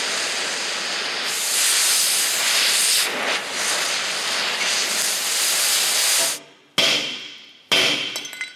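Oxy-fuel cutting torch hissing steadily as it cuts through a rusted bracket fastener, growing louder about a second in, then shutting off. Near the end, a hammer strikes the steel exhaust manifold and catalytic converter assembly twice, each blow ringing briefly.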